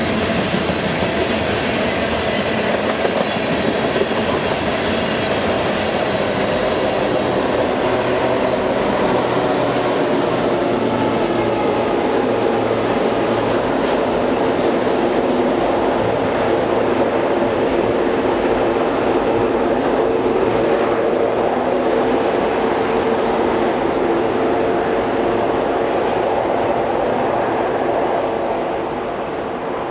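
Loaded coal hopper cars rolling past with steady wheel and rail noise and clicking over rail joints, then the rear distributed-power locomotives, an EMD SD70ACe and SD70MAC, go by with their diesel engines running as a steady drone. Near the end the sound drops to a quieter, more distant rumble.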